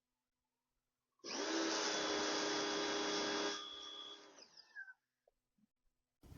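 Small electric pressure washer motor starting abruptly and running steadily with a whirring hum for about two and a half seconds, then dropping off and winding down.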